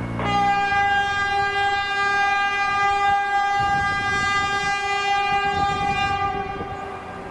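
Air horn on a caboose-led CSX local train sounding one long, steady blast that slides briefly up to pitch at the start and fades out near the end, over the low rumble of the approaching train.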